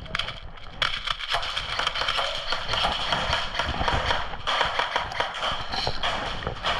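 Airsoft gunfire: a dense, irregular string of sharp pops and clicks from rifles firing, over steady background noise.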